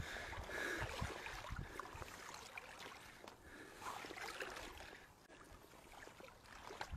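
Faint sloshing and trickling of shallow pond water, with a few small knocks near the end.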